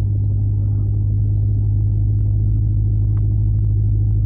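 Steady low rumble of a car in motion, the road and engine noise heard from inside the cabin.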